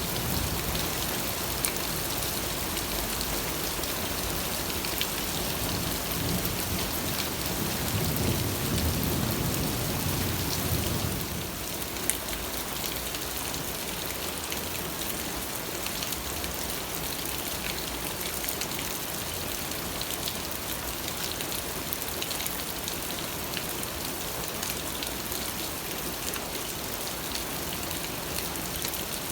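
Steady rain falling. A low rumble swells under it and stops about a third of the way in.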